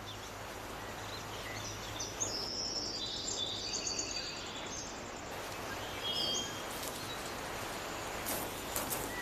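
Forest ambience: a steady background hiss with birds chirping now and then, and a few short crackles near the end, like twigs and dry leaves underfoot.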